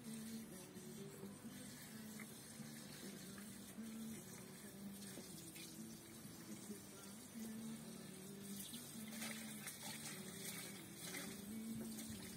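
Faint trickling water, an even splashing hiss with no pauses.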